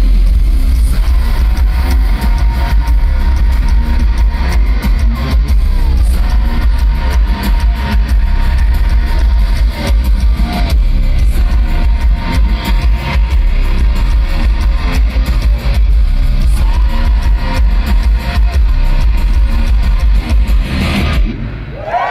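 Hard rock band playing live through a loud stage PA, heard from the crowd: electric guitar over bass and drums, with a heavy low end. The song stops about 21 seconds in.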